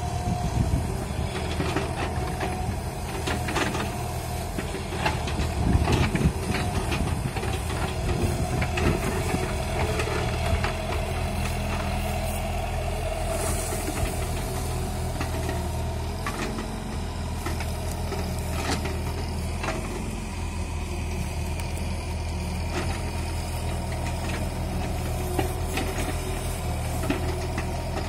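Diesel engine of a JCB tracked excavator running steadily under load, with scattered knocks and clanks as the arm and bucket dig into soil and vegetation.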